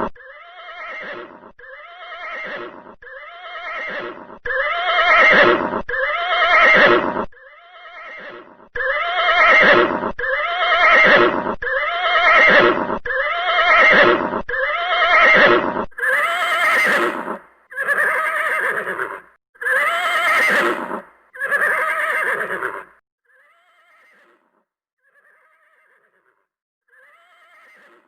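Horse whinnying: a short neigh that falls in pitch, repeated about once a second some twenty times over. The last few, near the end, are much fainter.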